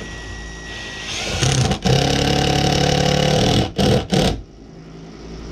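Cordless drill-driver driving a screw into a log wall: the motor runs steadily for about two and a half seconds, then gives two short bursts and stops.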